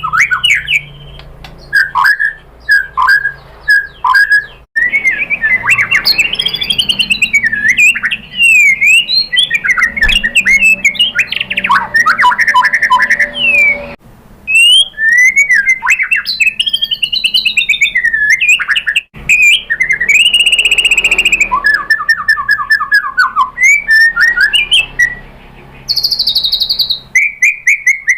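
White-rumped shama (murai batu) singing a long, varied song: loud whistled phrases that slide up and down, fast trills and rattling runs, broken by short pauses, with imitated calls of other birds worked into the song.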